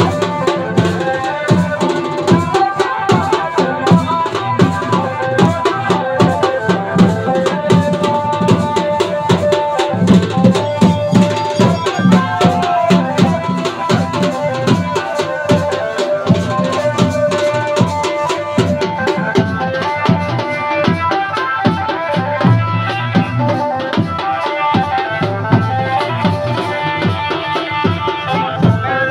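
Traditional dhol drums played live in a fast, steady rhythm for dancing, with a held melody carried over the drumming.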